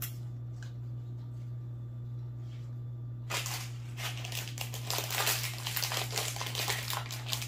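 Plastic frosting pouch crinkling and crackling as it is handled and squeezed, starting about three seconds in and going on for about four seconds.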